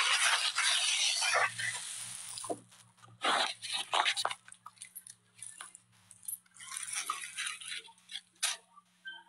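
Phone microphone handling noise as the phone is moved about: a loud rustle for about the first second and a half, then scattered clicks, knocks and rubbing over a steady low hum.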